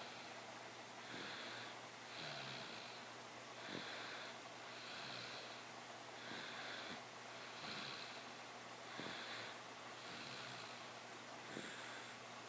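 Soft snoring: hissy breaths in and out, repeating evenly about every second or so.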